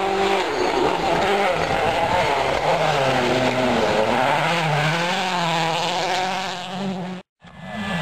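Citroën C4 WRC rally car's turbocharged four-cylinder engine revving hard through a gravel corner, its pitch rising and falling several times with throttle and gear changes. The sound cuts off abruptly near the end.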